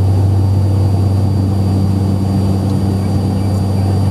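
Steady cabin drone of a turboprop airliner in flight: an even, deep hum from the engines and propellers, with a faint steady high whine above it.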